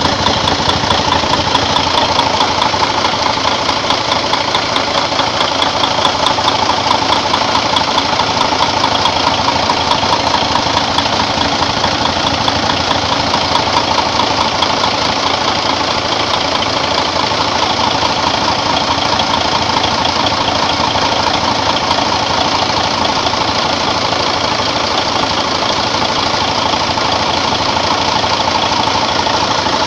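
Freshly overhauled Mercedes-Benz Actros diesel engine running at a steady speed, a dense, even knocking pulse with no change in pace or level.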